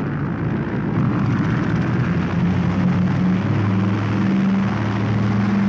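Piston engines of a twin radial-engine propeller plane running at high power for takeoff: a steady drone that grows a little louder about a second in, its low hum creeping up in pitch.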